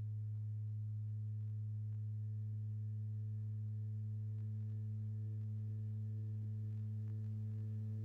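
A steady low electronic hum, one unchanging pitched tone with fainter higher overtones.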